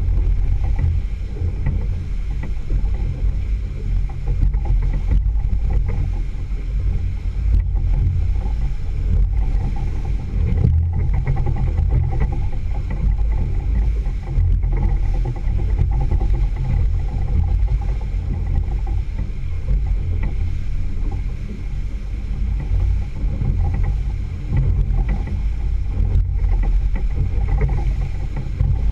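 Boat outboard motor running steadily while underway, with water rushing along the hull and wake. A heavy, even low rumble with a faint steady whine above it.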